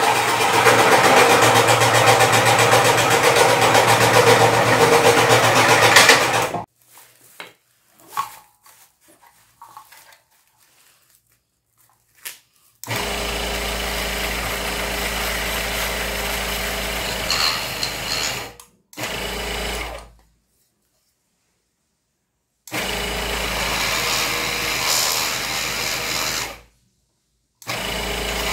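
A Krisbow electric scroll saw runs and cuts through a piece of wood for about six and a half seconds, then stops. After a pause with a few faint knocks, a flexible-shaft rotary tool whines steadily as it grinds the edge of a small wooden piece, in four runs of a few seconds each that start and stop abruptly.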